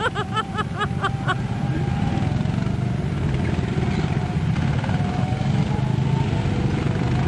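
Small engines of miniature parade cars running as they drive past in a line, a steady low hum with a faint whine over it. A quick string of high chirps sounds in the first second or so.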